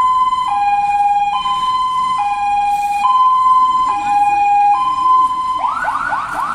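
Fire engine siren sounding a two-tone hi-lo pattern, alternating between a higher and a lower note a little under a second each. Near the end it switches to fast repeated rising sweeps.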